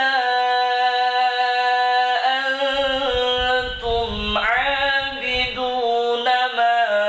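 An imam reciting the Quran aloud in a slow, melodic chant through a mosque microphone, holding long notes that step up and down in pitch. A low rumble sits under the voice for a couple of seconds in the middle.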